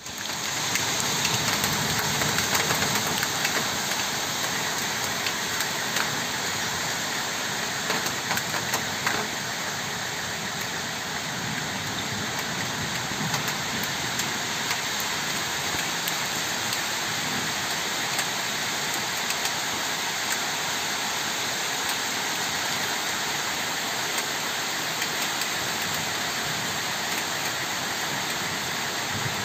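Heavy rain pouring down through trees in strong wind: a dense, steady hiss, slightly louder in the first few seconds, with scattered faint clicks of drops.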